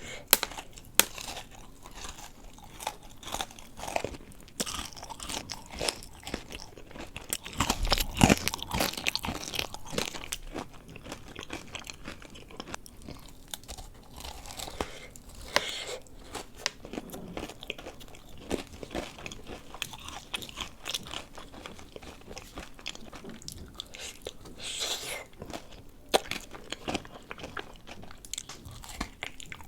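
Close-miked ASMR eating of a dessert: crisp crunching bites and chewing, with a heavier, louder bite about eight seconds in.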